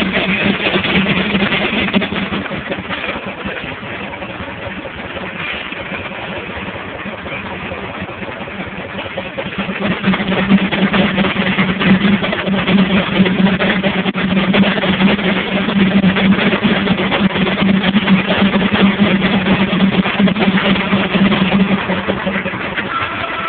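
Large sawmill belt-driven by a Case steam traction engine, running with a steady hum under dense mechanical noise, louder from about ten seconds in until near the end.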